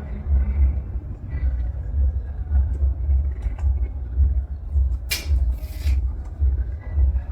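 Background music with a deep, pulsing bass beat, and a brief hiss about five seconds in.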